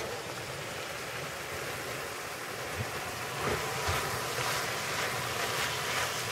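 Ground turkey sizzling in a frying pan on the stove, with a spoon stirring and scraping through the meat from about halfway, where the sizzle gets a little louder.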